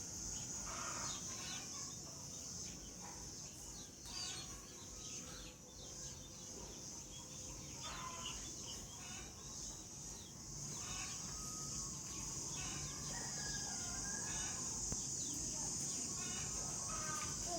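Chickens clucking in short calls scattered throughout, over a steady high-pitched drone.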